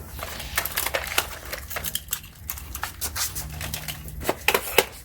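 Irregular clicks, knocks and rattles of small hard objects being handled, the loudest few near the end, over a low steady hum.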